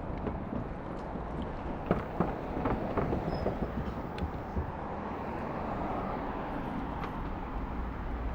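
Electric scooter riding along a dirt path: a steady rumble of tyres and rolling noise, with a few sharp clicks or knocks in the first half.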